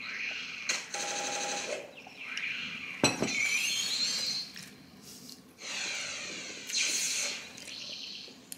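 Chopsticks and a fork clinking against ceramic bowls while eating, with one sharp clink about three seconds in.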